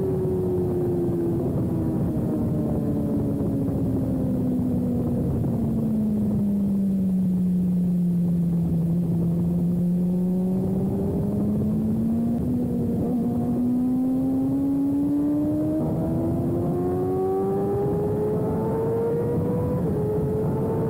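Sport bike engine running at speed on a racetrack over a rush of wind noise. Its pitch sinks slowly for the first eight or nine seconds, then climbs steadily back up over the rest.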